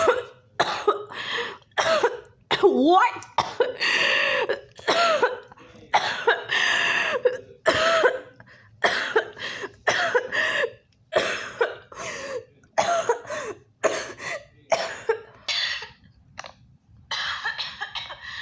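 A person coughing over and over in a long acted coughing and choking fit: short separate coughs about two a second, mixed with throat-clearing sounds.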